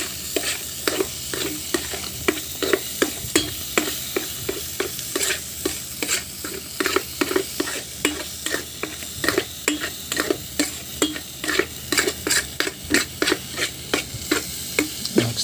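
A spoon scraping and knocking against a frying pan, about three strokes a second, as sardines and egg are stirred over steady sizzling oil. The mixture is being fried down until dry.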